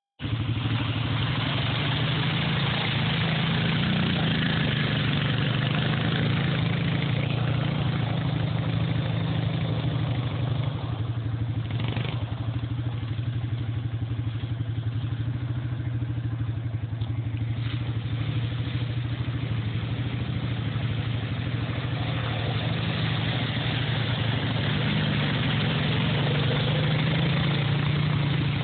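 Honda Foreman 500 ATV's single-cylinder four-stroke engine running steadily as it is ridden around a trail. It gets quieter through the middle as the quad moves off, and louder again as it comes close near the end.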